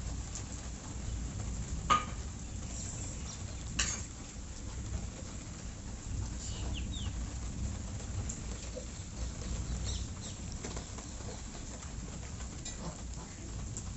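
Birds calling faintly over a steady low rumble, with two sharp clicks about two and four seconds in.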